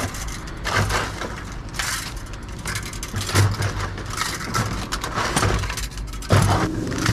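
Hands rummaging through a box of scrap wire and small metal pieces: a run of scraping, rustling and clinking. A low engine hum comes in near the end.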